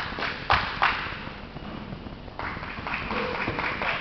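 Three sharp slaps in the first second, typical of hands smacking skin as the wrestlers hand-fight, then the mixed noise of spectators in the gym.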